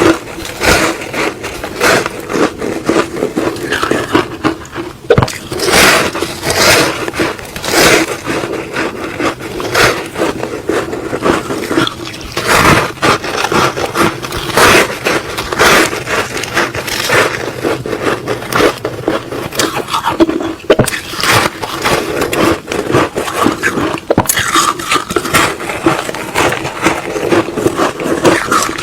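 Close-miked bites into frozen matcha ice: a rapid, irregular run of loud crunches and cracks as the ice breaks between the teeth and is chewed.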